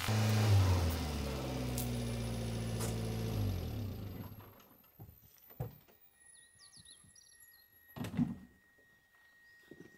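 Water pouring from a spring pipe onto the ground, under low sustained tones like background music, both fading out about four seconds in. Then quiet outdoor ambience with a few faint clicks and a brief dull knock about eight seconds in.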